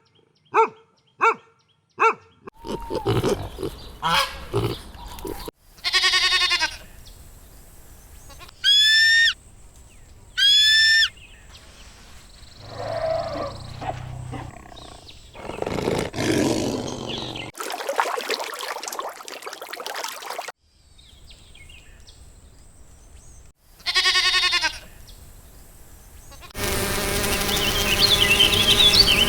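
A series of different animal calls played one after another, each lasting a second or a few seconds with short gaps between. They range from short clucks at the start, through several rising-and-falling pitched calls and a roar, to a long, rich call near the end.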